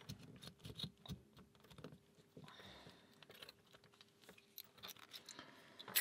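Faint, irregular small clicks and scrapes of metal lock picks being worked and handled at a lock, with a slightly sharper click near the end.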